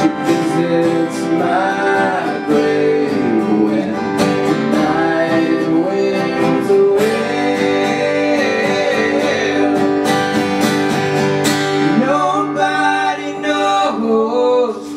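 Live band playing a slow country song, with strummed acoustic guitar under a melody line that slides and bends in pitch.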